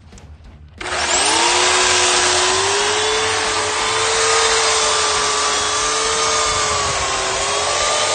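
Corded electric chainsaw starting up about a second in, its motor whine rising quickly, then running steadily while cutting into the wood, the pitch wavering slightly with the load.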